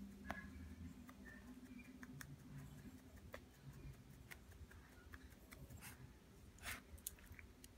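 Near silence: quiet room tone with faint, scattered small clicks and a brief soft rustle about two-thirds of the way through.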